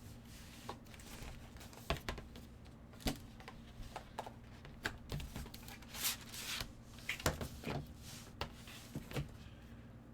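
Card-break packaging and photos being handled: scattered rustles, slides and light taps of cardboard and plastic sleeves, with a longer rustle about six seconds in.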